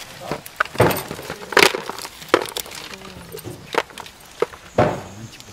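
Several people shelling red beans by hand: dry pods cracking and snapping open in irregular sharp clicks, with beans clicking into plastic bowls.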